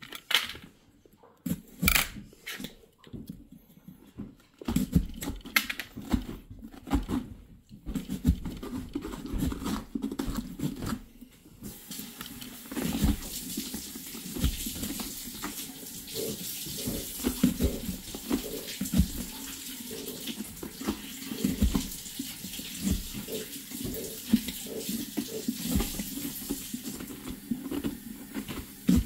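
Scattered knocks and clicks, then from about twelve seconds in a water tap running steadily into a sink, with irregular knocks under the running water.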